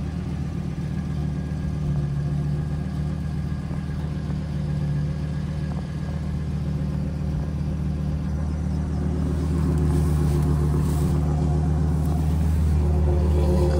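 Ford F450's V10 gasoline engine idling steadily, growing a little louder about two-thirds of the way through.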